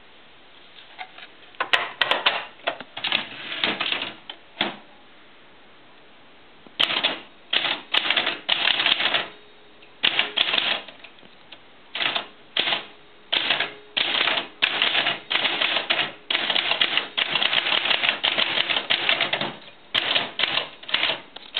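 East German Erika manual typewriter being typed on: keystrokes clack in uneven bursts, with a pause of about two seconds near the start, then faster runs of strikes for most of the rest.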